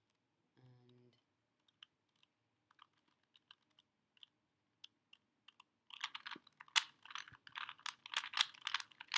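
Plastic Rubik's Cube being turned by hand: scattered single clicks, then from about six seconds in a fast run of rapid clicking and rattling as the last moves of the solve are made.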